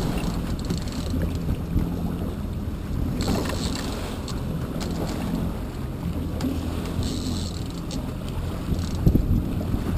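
Boat engine running steadily at low revs, with water hissing and splashing around the hull now and then and gusts of wind on the microphone near the end.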